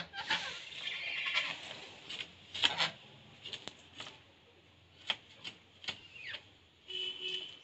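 Scales being scraped off a rohu fish against the blade of a boti (floor-mounted curved knife): a rasping scrape, then an irregular run of sharp scratchy clicks as the fish is drawn over the edge. A short pitched call sounds near the end.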